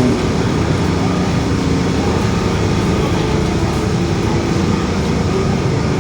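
On board a Mercedes-Benz OF-1721 BlueTec 5 city bus while it drives: the diesel engine runs steadily under road noise, with the growl of its differential.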